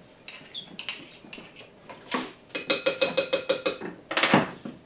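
Metal spoon clinking and scraping in a small glass jar while an ingredient is scooped out, with a quick run of about ten ringing taps in the middle and a couple of louder scrapes.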